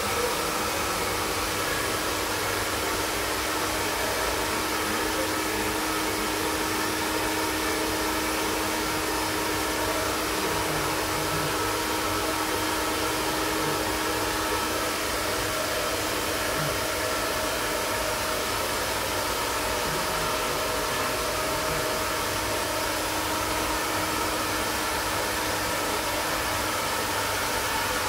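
iTera-Pro handheld terahertz health blower running steadily: a continuous hair-dryer-like rush of air with a faint steady hum underneath.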